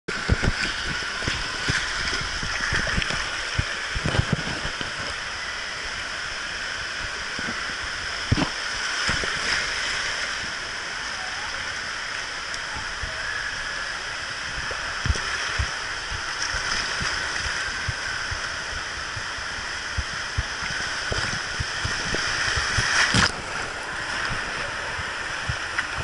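Water rushing down a water-slide flume as a rider slides through it, with scattered knocks and bumps throughout. The rush gets louder about three seconds before the end, then drops off suddenly.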